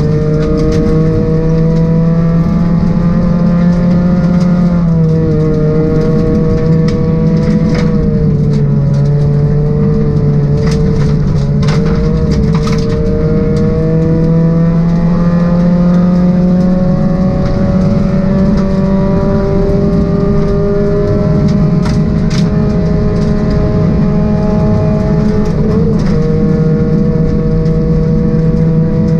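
Onboard sound of a Ford Focus 1.6-litre rally car engine running hard on a gravel stage. The pitch holds high with brief dips several times and a long slow climb in the middle, over tyre and road rumble, with sharp clicks of gravel hitting the car.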